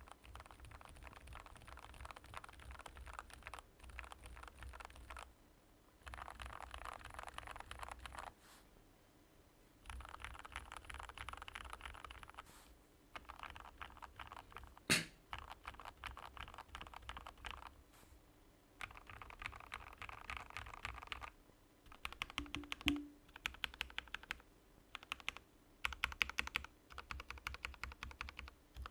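Typing on a Royal Kludge RK84 mechanical keyboard with Gateron Black milky linear switches: fast runs of keystrokes in bursts of a few seconds with short pauses between them. One sharp, louder stroke stands out about halfway through, and near the end the presses come as more separate, spaced clicks.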